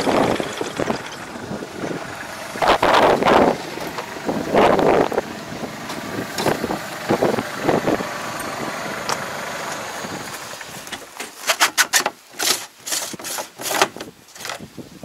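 Rushing noise with several louder swells, then a quick run of sharp plastic clicks and knocks near the end as the screw cap of a plastic water tank is worked open.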